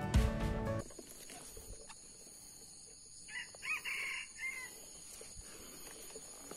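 Intro music cuts off within the first second. About three seconds in, a red junglefowl rooster crows once, a short clipped crow of a little over a second.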